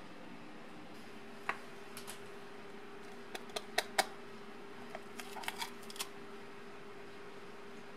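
Scattered light clicks and taps of small metal carbide-lamp parts being handled and fitted with gloved hands, a dozen or so, beginning about a second and a half in and stopping about six seconds in, over a steady faint hum.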